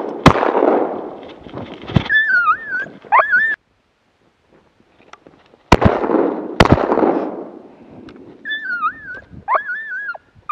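Shotgun shots: one right at the start, then two about a second apart around six seconds in, each trailing off. Between and after the shots a dog whines in short, high, rising-and-falling calls.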